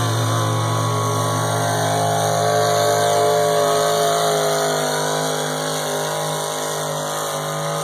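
Engine of a pulling truck or tractor held at high revs under full load during a pull, one steady pitched note that wavers slightly up and down.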